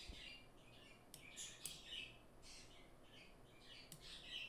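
Near silence, with faint high chirping sounds and a few soft clicks.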